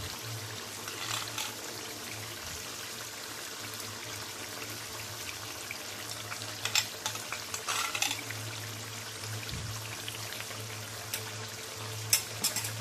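Chicken simmering in oil in a karahi, a steady sizzling hiss with a few short crackles and pops, over a low steady hum.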